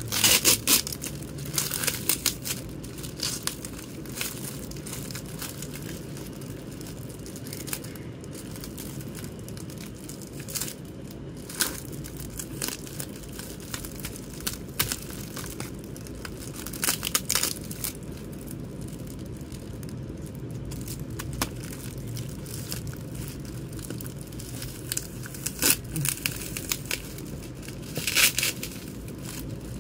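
Clear plastic wrapping around CD jewel cases crinkling and tearing in irregular bursts as it is cut and pulled off, over a steady low background hum.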